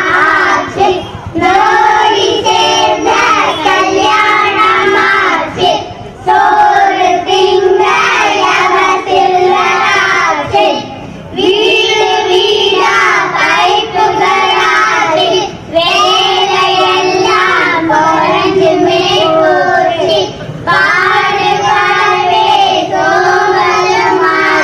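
Children singing together into a hand-held microphone, in sung phrases broken by short pauses for breath.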